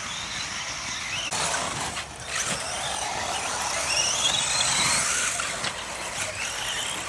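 Radio-controlled off-road buggies racing, their small motors whining high and repeatedly rising in pitch as they accelerate out of corners.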